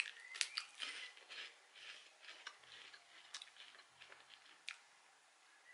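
Crisp biscuit stick being chewed: faint, irregular crunching and clicking, with a sharper crack about half a second in.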